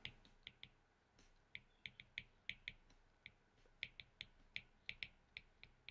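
Faint, irregular clicks of a stylus tip tapping on a tablet screen while handwriting, about twenty short ticks spread unevenly.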